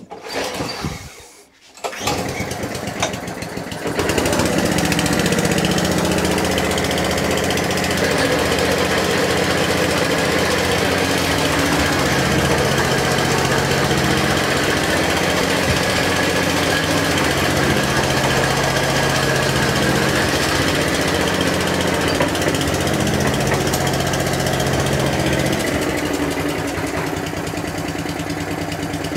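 Atco Balmoral 14S cylinder mower's small petrol engine started on choke, catching about two seconds in and running steadily. It runs louder from about four seconds in while the mower is driven along, then settles quieter near the end.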